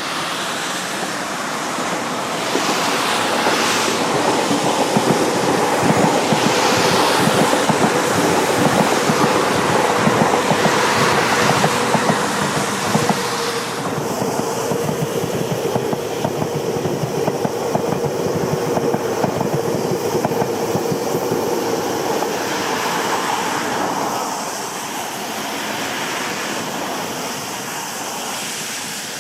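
Tobu Railway C11 123 steam tank locomotive and its train passing on a curve: a loud rolling rush with a steady ringing tone held for most of the pass. The sound eases off about twenty-four seconds in.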